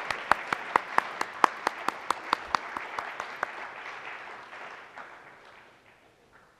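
Audience applause, with one clapper's sharp claps standing out at about three a second. The applause thins and fades out about five seconds in.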